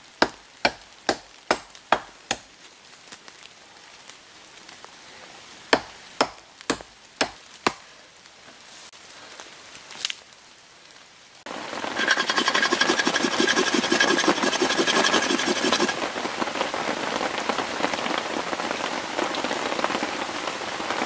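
A large MXIII bushcraft knife chopping into dead candeia wood: a run of about seven sharp blows roughly two a second, a second run of four or five, then a single blow. From about halfway in, loud steady rain takes over.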